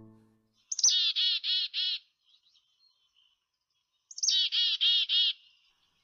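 A small songbird singing two phrases about three seconds apart. Each phrase is a high opening note followed by four or five quick, evenly repeated, downward-arching notes, with a few faint chips between the phrases.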